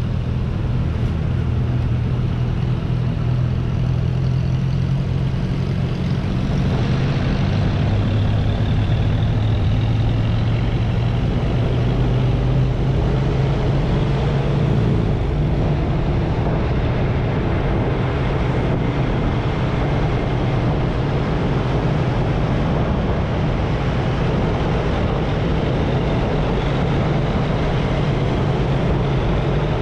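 Motorcycle engine running with road and wind noise while riding. A low steady engine hum is plain for the first fifteen seconds or so, then gives way to a more even rush of road noise.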